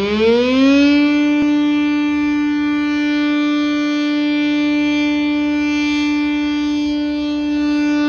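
Municipal motor siren sounding the daily noon signal: its pitch climbs and levels off about a second in, then holds a steady, loud wail rich in overtones.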